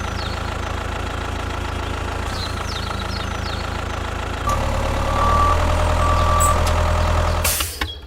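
A vehicle engine running steadily at idle, getting louder with a higher whine about four and a half seconds in, then dying away near the end.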